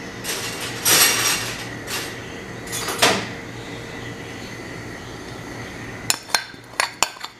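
Kitchen handling sounds: a few brief scraping, rustling swishes, then from about six seconds a quick run of sharp clinks of a utensil against dishware.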